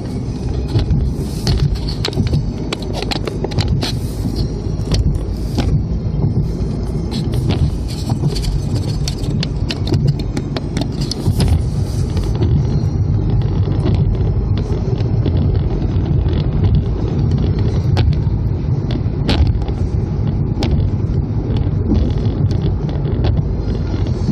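Road and engine noise inside a moving car, a steady low rumble. Frequent small clicks and rattles run through the first half and thin out later.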